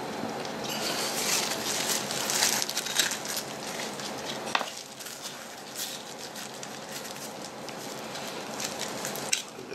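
Disposable plastic gloves and clear plastic cups being handled, crinkling and crackling with scattered light clicks, busiest in the first few seconds and then quieter.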